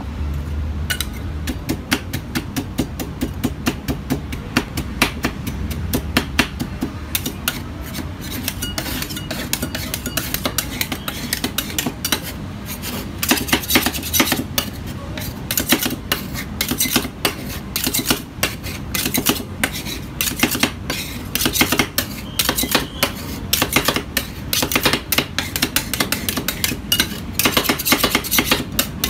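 Two metal spatulas rapidly chopping and scraping on a frozen steel ice pan as a chocolate ice cream base is mixed for rolled ice cream: a fast, continuous clatter of metal-on-metal clicks and taps.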